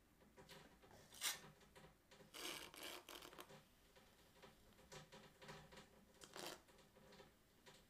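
Faint rubbing and scraping of a metal rib against a clay cylinder turning on a potter's wheel, in short bursts, with one sharp click about a second in.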